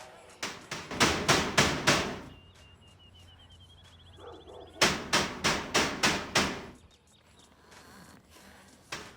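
Knocking on a door: two rounds of about six quick knocks, roughly three a second, a few seconds apart, with a faint rising warbling tone between them.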